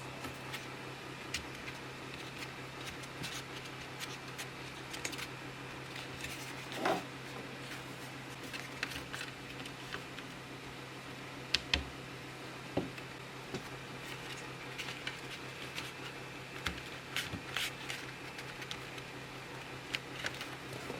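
Mechanical keyboard with Outemu switches, keys pressed and clacking at an irregular pace, a few strokes heavier with a low thock, over a steady low hum.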